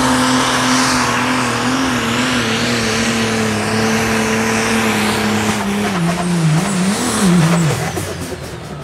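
Pro Stock pulling tractor's diesel engine running flat out with a steady high drone. About six seconds in, the revs waver and fall, and the sound fades near the end.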